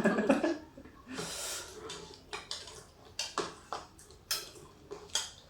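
Tableware clinking at the table: a series of short, irregular clicks and taps of spoons against plates and bowls, with a brief hiss about a second in.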